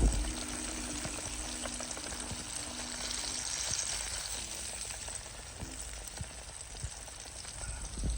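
Fish milt (shirako) frying in hot oil: a steady sizzling hiss with scattered small crackles and pops. A single thump comes right at the start.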